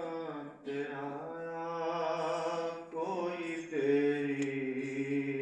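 A man's solo voice chanting a naat, an unaccompanied devotional poem in praise of the Prophet Muhammad, in long drawn-out melodic notes.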